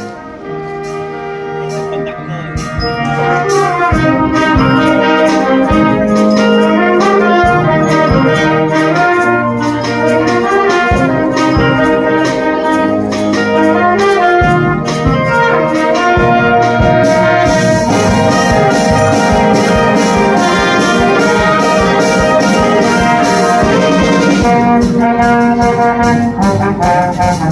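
Live school band of saxophones, trumpets, trombones, double bass and drum kit playing a piece over a steady drum beat. It grows louder over the first few seconds, and cymbals ring out through the middle stretch.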